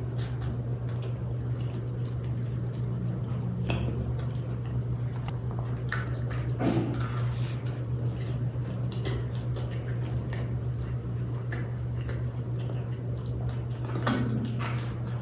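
Close-miked eating sounds: chewing, with scattered short crackles as a deep-fried kachori's crisp crust is bitten and broken apart. A steady low hum runs underneath.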